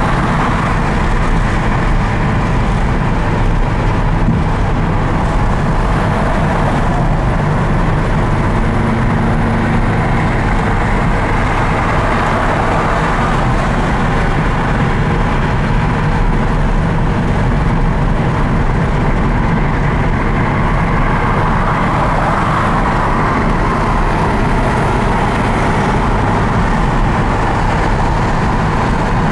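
1965 Porsche 356C 1600 SC's air-cooled flat-four running steadily while cruising at freeway speed, heard from inside the cabin together with tyre and road noise.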